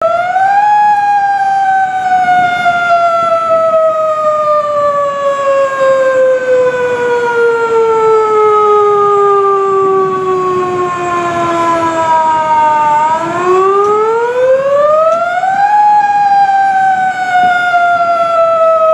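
Fire engine siren wailing. The pitch climbs quickly, then falls slowly and steadily for about twelve seconds. It winds up again and starts another slow fall near the end.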